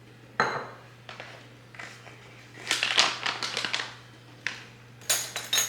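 Kitchen handling noises while dry baking ingredients are measured out: short scrapes and rustles of a measuring cup and ingredient containers, in three brief bouts.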